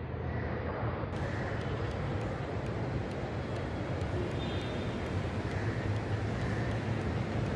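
Steady low rumble with a hiss over it: the ambient noise of an open-air elevated metro platform, with no train passing.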